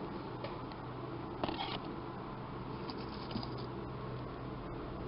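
Steady low background hum with a few faint, short rustling or handling sounds, the clearest about a second and a half in.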